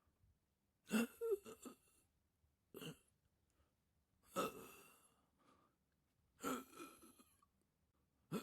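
An old man's voice making short startled, suffocating gasps, four separate takes with pauses between them, the second very brief; another begins right at the end.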